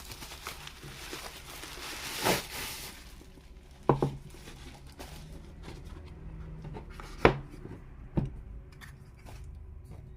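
Packaging being handled: a rustling, crinkling stretch for the first few seconds, then three sharp knocks spread over the rest.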